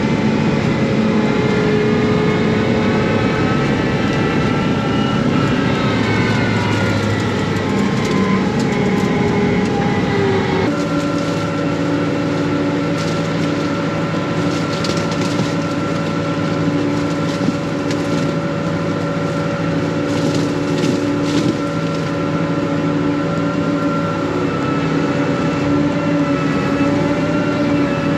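Combine harvester running while harvesting corn: a steady machine drone with several held tones. The pitch wavers a little for the first ten seconds or so, then the sound changes abruptly to a different, steadier drone.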